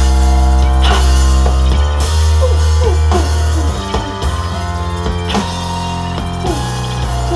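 Live indie pop band playing: drums, a deep held bass note and layered keyboards. The bass eases off a little past halfway.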